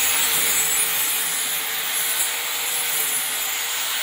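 Electric angle grinder running steadily with a high whine as its disc cuts through dry reeds sticking out of the top of a brick wall.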